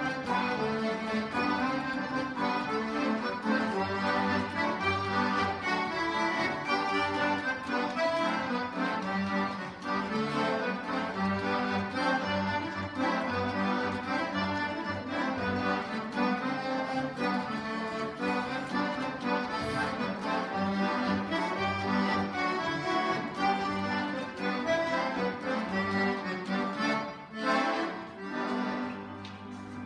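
Small accordion playing a lively traditional dance tune for longsword dancing, with a busy melody over steady bass notes.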